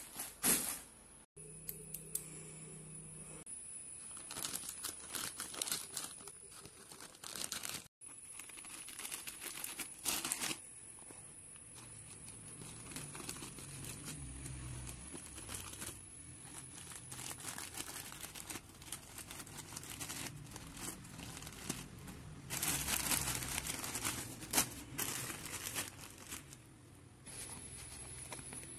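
Plastic courier mailer crinkling and rustling as it is handled and cut open with scissors, in irregular bursts with sharper snips and tearing, louder near the end.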